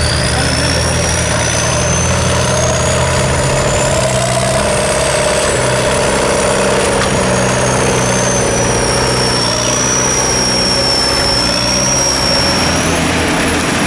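Off-road 4x4 engines running steadily under load as the trucks work through deep mud, with a thin high whine that rises over the first few seconds and then wavers and settles before stopping near the end.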